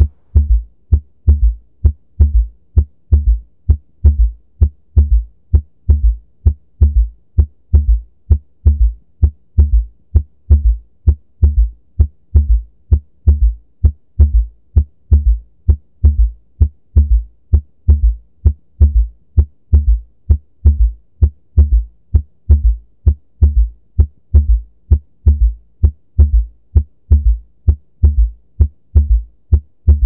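Heart sounds with a third heart sound (S3): low thuds repeating in a steady three-beat "Ken-tuc-ky" rhythm, the S3 falling just after the second sound, from rapid filling of the left ventricle. It is normal in children, young adults and athletes, but after age 40 it is a sign of left ventricular failure.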